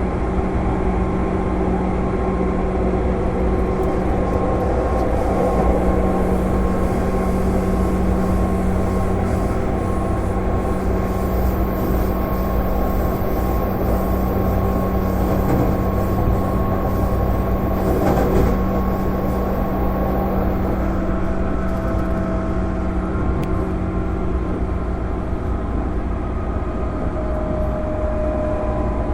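Running sound inside a JR 205 series electric commuter train motor car, with its MT61 externally fan-cooled traction motors. Steady motor and fan hum over rail and wheel noise, the train holding a steady speed.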